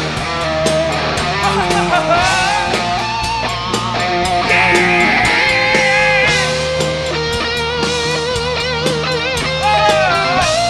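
Live hard rock band playing loud: distorted electric guitars, bass and drums, with a lead line of held, wavering notes over them.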